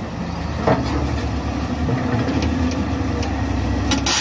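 Diesel engines of a Caterpillar 966F wheel loader and a tracked excavator running steadily together, with a sharp knock under a second in and another near the end.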